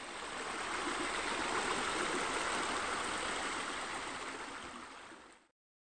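Splashing, rushing water of pool bubblers, a steady sound that swells in, then tapers off and stops shortly before the end.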